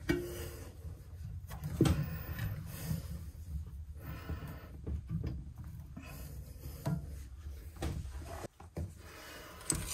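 Handling noises from a bidet T-valve and braided supply-hose fitting being turned by hand under a toilet tank: scattered irregular clicks and rubbing, quieter near the end.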